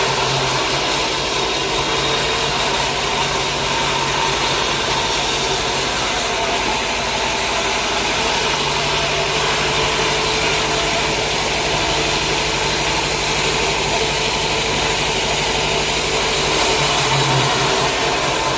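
Sawmill machinery running steadily: a constant mechanical noise under a low motor hum. The hum drops away a few seconds in and comes back about halfway through.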